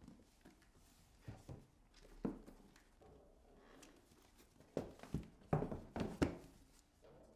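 Books being set down into a cardboard box: scattered soft thuds and knocks, a few at first, then several in quick succession in the second half.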